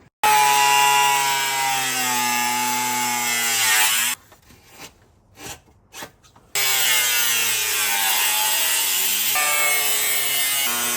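Handheld power tool run in two bursts of about four seconds each on a stuck bolt during differential removal, its pitch sagging slightly near the end of the first burst.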